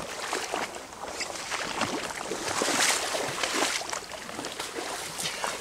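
Repeated water splashing from a large hooked rainbow trout thrashing at the surface close by during the fight, loudest about halfway through.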